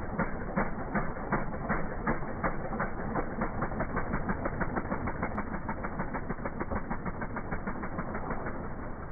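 BMW F650GS Dakar's single-cylinder engine running under throttle as the rear tyre spins in wet mud, heard as a regular knocking beat. The beat quickens from about three to about five a second over the first few seconds and eases and fades slightly near the end.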